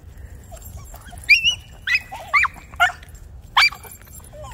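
Miniature schnauzer making a string of short, high-pitched squeaks and yips, about five or six over two and a half seconds, some sliding up, others sliding down. These are play noises while tussling with another dog.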